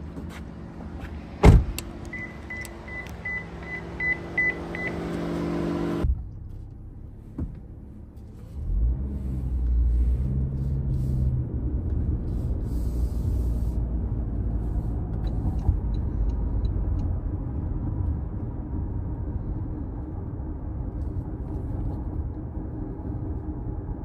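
Inside a 2025 Toyota Camry LE hybrid: a sharp thump about a second and a half in, then a quick run of about eight short beeps. After a cut, the car drives off with steady road and tyre noise and a low rumble in the cabin.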